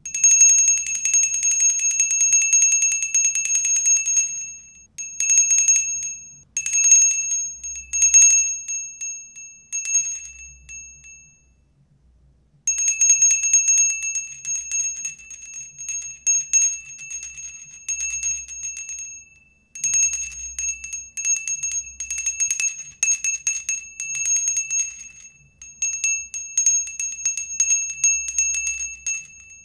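A small high-pitched bell rung in a fast trill, struck many times a second, in bursts of a few seconds with short pauses between; the longest runs are at the start and from about 13 to 25 seconds in.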